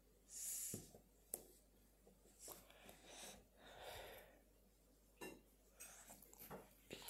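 Faint clicks and taps of plastic Lego pieces being handled and pressed together, scattered through the quiet.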